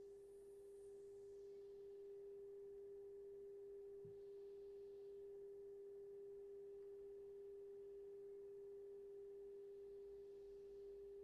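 A faint, steady 400 Hz sine test tone from a Kenwood KR-5030 stereo receiver. The receiver is demodulating an amplitude-modulated test signal at 1400 kHz during AM alignment, and the clean, unwavering tone shows the station is tuned in and peaked.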